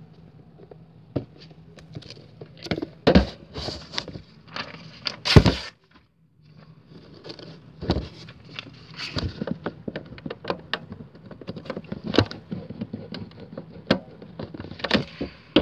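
Handling noise close to the microphone: irregular knocks, taps and rustles as hands move things about, the loudest knock about five seconds in. Just after it the sound cuts out completely for about half a second.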